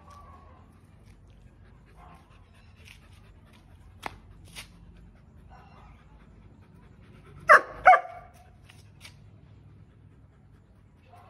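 German Shepherd puppy giving two quick barks, close together, about two-thirds of the way in.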